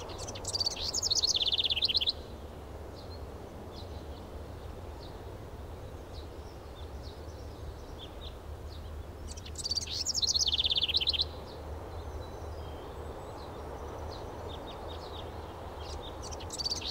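A songbird singing a short phrase of fast repeated notes that drop in pitch, three times several seconds apart, over a steady low outdoor background hum.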